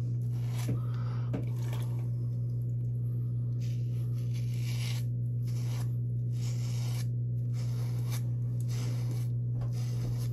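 A hand razor with an old, never-changed blade scraping through stubble and shaving cream on the neck, in short strokes about one a second. A steady low hum runs underneath.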